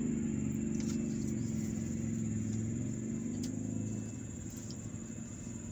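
Steady, low engine hum from vehicles working the dirt site. It drops a little in level about four seconds in.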